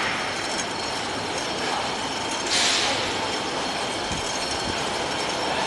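Yarn winders of a sun shade net yarn extrusion line running: a steady mechanical din, with a short burst of hiss about two and a half seconds in.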